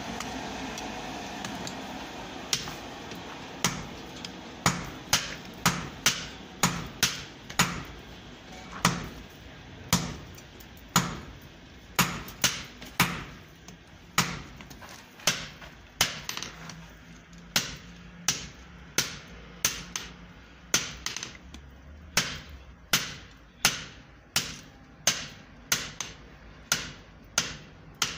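Hand hammer striking a red-hot steel bolt held in tongs on a small block anvil: a long run of sharp, ringing blows, about one to two a second with brief pauses. Before the hammering starts, about two seconds in, a steady rushing noise fades away.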